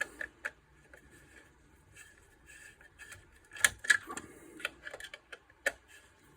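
Scattered light clicks and taps of a screwdriver working screws into a plastic fire alarm sounder base, with a cluster of sharper clicks a little past halfway.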